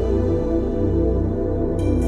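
Ambient new-age background music: slow sustained tones over a low drone, at an even level.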